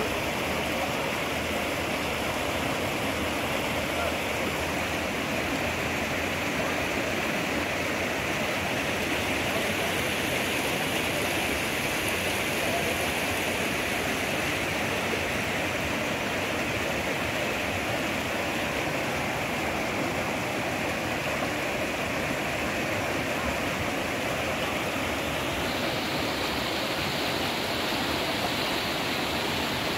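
Shallow mountain stream rushing steadily over rocks, an even wash of water noise. About 25 seconds in it turns slightly brighter.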